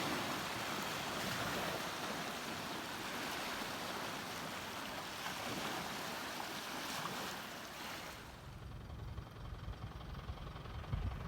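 Steady rushing noise like running water or surf. About eight seconds in it gives way to a quieter low rumble.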